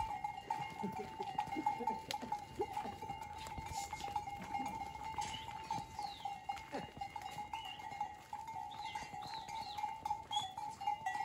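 A herd of goats on the move: animal bells clinking steadily, goats bleating now and then, and the clatter of many hooves on cobblestones.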